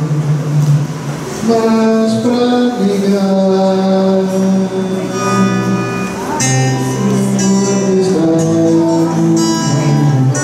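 Music: singing with instrumental accompaniment, in slow held notes that change pitch every second or two.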